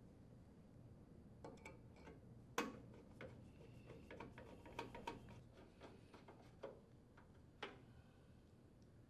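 Faint, irregular clicks and taps of a screwdriver and gloved hands driving screws into the metal blower wheel bearing cover, with one sharper tap about two and a half seconds in and a quick run of clicks a little later, over a low steady room hum.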